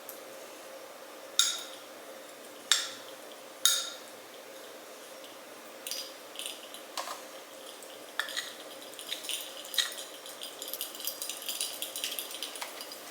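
Utensil clinking and scraping against a measuring cup and chocolate mold while melted chocolate is poured and spread as a top layer: three sharp ringing clinks in the first few seconds, then a run of lighter scrapes and taps that grows busier toward the end.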